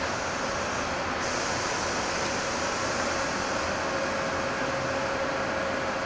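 Historic electric locomotive moving slowly past at low speed: a steady running hum with even rail and machinery noise.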